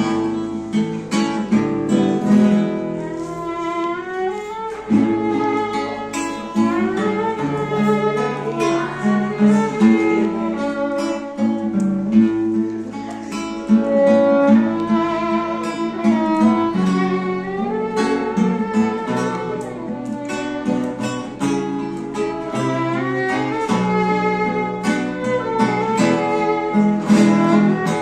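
Instrumental introduction by a Venezuelan string ensemble: cuatros and guitar strumming a steady rhythm over an electric bass line, with a violin playing the melody. No voice yet.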